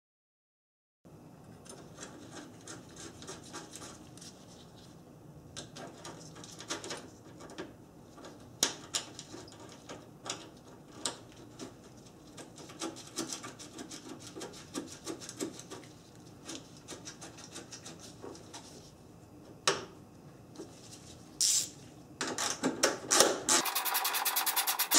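Hand handling of a plastic coolant reservoir bottle and nearby hoses in a car engine bay: rubbing, scraping and scattered light plastic clicks. Near the end comes a rapid run of evenly spaced clicks.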